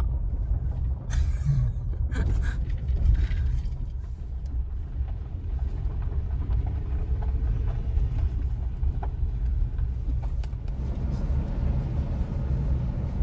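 A car driving at low speed, heard as a steady low rumble of engine and tyres, with a few brief louder noisy bursts in the first few seconds.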